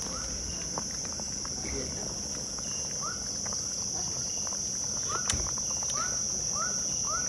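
Steady high-pitched trilling of night insects. From about three seconds in, a short rising chirp repeats about every half second, and a brief faint click comes a little past five seconds in.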